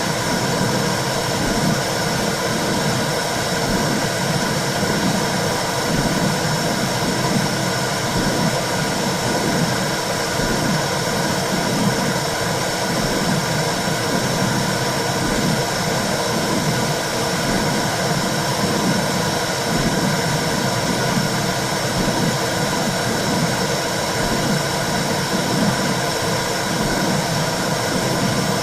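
Womb-sound recording for soothing a baby: a steady whooshing hiss with a low pulse repeating roughly once a second, like a heartbeat heard through the body.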